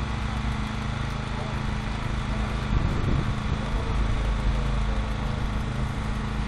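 An engine running steadily at a constant speed, getting briefly louder about three seconds in.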